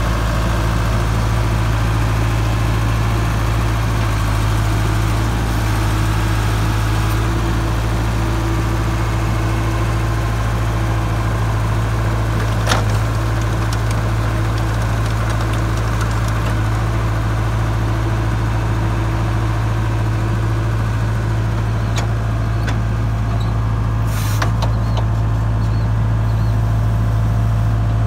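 Ditch Witch RT70 trencher's diesel engine idling steadily, with a couple of brief clicks about halfway through and near the end.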